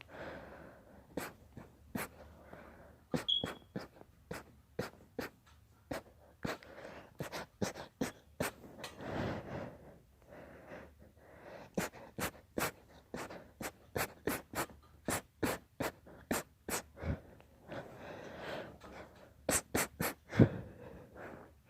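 Quiet, stifled sneezing: breathy, heavy breaths and snorts broken by many short sharp clicks, with the loudest single burst near the end.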